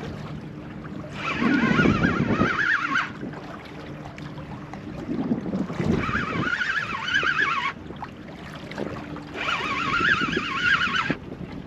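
Wind and water around a small boat, with an unidentified warbling tone that comes and goes three times, each spell about two seconds long.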